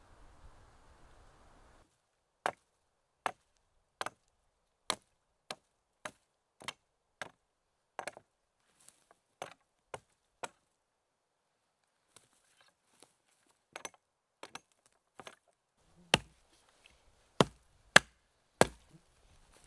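Hatchet chopping a fallen log: sharp wooden strikes, a steady run of about two a second starting a couple of seconds in, then a pause with a few lighter taps, and a handful of heavier blows near the end.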